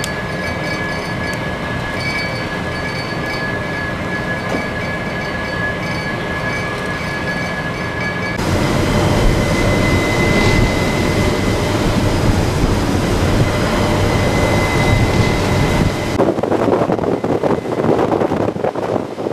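Steady machinery drone aboard a warship, with a thin, steady high whine running through it. About eight seconds in it cuts to a louder, rougher rush of noise. Near the end this gives way to uneven, gusty wind on the microphone.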